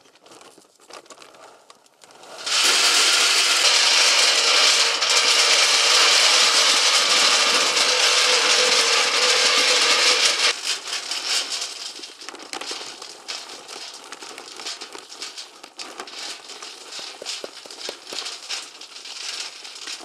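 Dry pet food kibble poured into a galvanized sheet-metal animal feeder: a loud rattling rush of pellets on metal starts about two seconds in, with a steady ringing note from the drum, and stops abruptly after about eight seconds. It gives way to a quieter, scattered patter of pellets.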